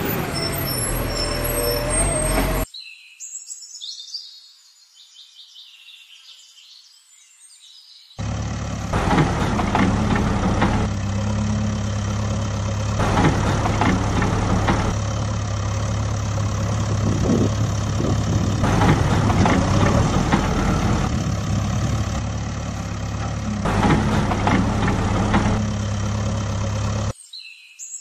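Heavy vehicle engine running steadily with irregular clattering. It comes in after a quieter stretch of about five seconds and drops out just before the end.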